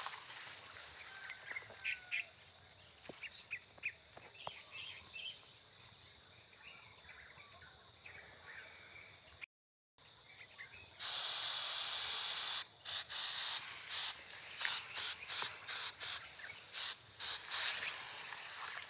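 Insects chirring steadily in a rice field, with a few short chirps. After a brief dropout about halfway, a loud rushing noise takes over, steady for a second or two and then coming and going in rapid bursts.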